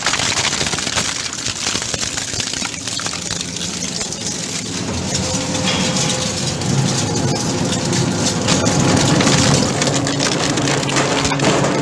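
Electric grinding machine crushing material, a dense crackling clatter; about five seconds in a steady motor hum comes up and the sound grows louder.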